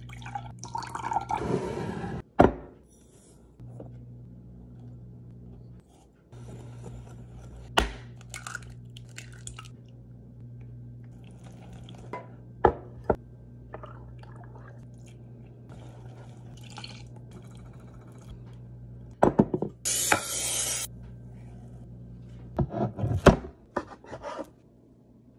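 Kitchen baking sounds over a steady low hum. Milk is poured into a glass measuring jug at the start, then a wire whisk stirs in a glass bowl with scattered sharp knocks of utensils on glass. A brief loud hiss comes a little past the middle, and a knife cuts through a baked chocolate cake near the end.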